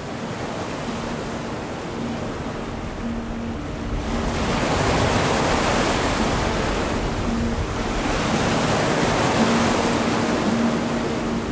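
Ocean surf: a steady wash of waves that grows louder about four seconds in and then swells and eases, with a faint low hum underneath.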